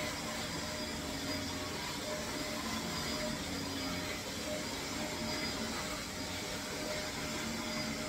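Shark upright vacuum cleaner running steadily while being pushed over carpet: an even motor noise with a faint steady whine in it.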